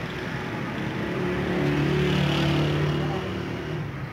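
An engine running steadily, with its low hum swelling louder for a second or two in the middle and then easing back.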